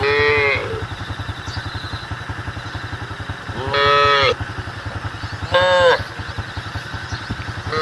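Cattle mooing in three short calls, each rising and falling in pitch, over a steadily running motorcycle engine.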